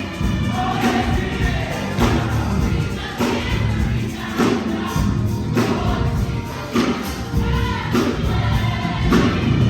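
Live gospel music: voices singing together over a band, with a strong beat falling about every second and a quarter.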